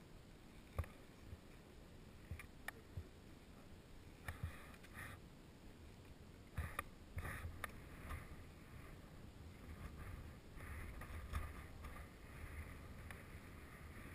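Scattered muffled clicks and knocks with patches of scraping, from ski gear (skis, poles, boots) being shifted and handled close to a helmet camera.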